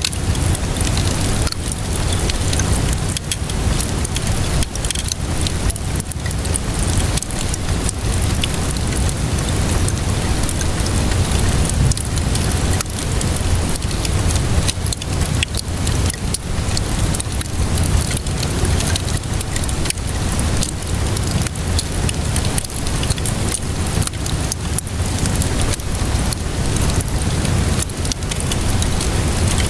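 A wood fire crackling, with frequent sharp pops and snaps, over steady rainfall and a low rumble.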